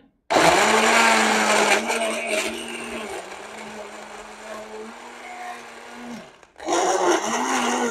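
Black+Decker personal sports blender's motor running as it blends apple, pomegranate and ice cubes with added water. It is loudest in the first couple of seconds, then quieter and steadier. It cuts out briefly near the end and starts again.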